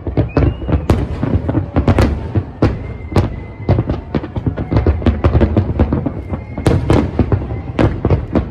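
Large fireworks display: many aerial shells bursting in quick succession, overlapping sharp bangs several a second over a continuous rumble.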